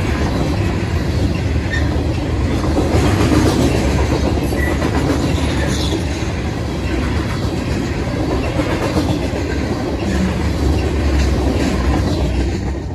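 Freight train of Herzog ballast cars rolling past, steel wheels clattering over the rail joints and crossing with a steady low rumble. Near the end the last car goes by and the noise starts to drop.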